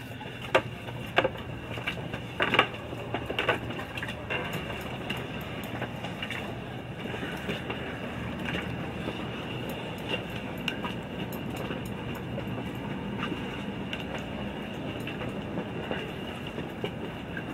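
Steady low rumble with a faint hum, with several sharp knocks and clicks in the first few seconds.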